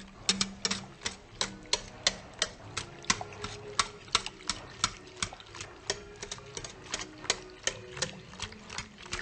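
A stirring utensil knocking against a mixing bowl in a steady rhythm, about three sharp clinks a second, as tapioca pearls, coconut cream and mango puree are mixed.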